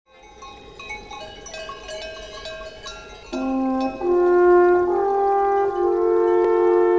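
Background music: a quick run of light, short notes, then about three seconds in, louder held chords that build and sustain.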